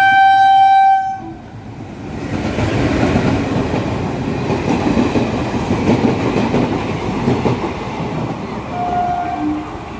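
Locomotive horn sounding one loud blast of about a second. Then the train runs slowly past with its coaches rumbling, wheels clattering over the rails.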